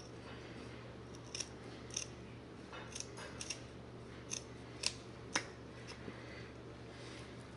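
Scissors snipping about eight times at irregular intervals, short sharp cuts as carpet is trimmed.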